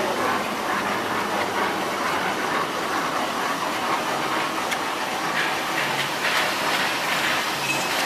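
A 2400 mm toilet paper rewinder machine running: a steady, even mechanical noise from its rollers and the tissue web unwinding off the jumbo parent rolls.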